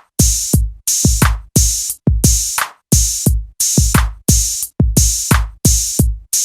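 Background music: an electronic drum-machine beat with punchy kick drums and bright hi-hat and cymbal hits, about two beats a second.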